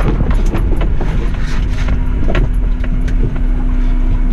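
Suzuki Jimny driving along a rough green lane: a steady low rumble with many short knocks and rattles.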